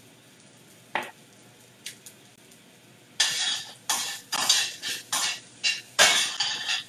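A metal utensil scraping and clattering in a stainless steel skillet, stirring garlic and ginger in hot oil: a single knock about a second in, then a quick run of stirring strokes from about three seconds in.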